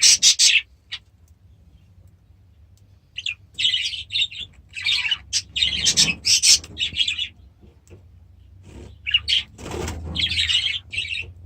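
Aviary birds chirping in quick, high-pitched runs, in three spells separated by quiet gaps of a second or two.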